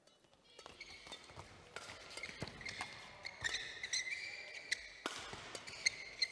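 Badminton doubles rally: sharp racket strikes on the shuttlecock and shoes squeaking on the court floor, starting about half a second in and growing busier.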